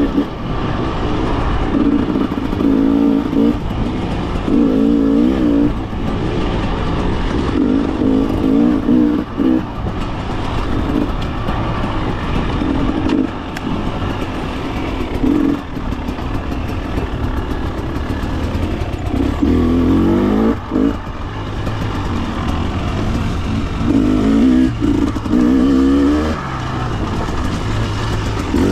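2024 Husqvarna TE300 single-cylinder two-stroke dirt bike engine being ridden on a trail. The revs climb and drop again and again, with the strongest surges near the start and again after about twenty seconds.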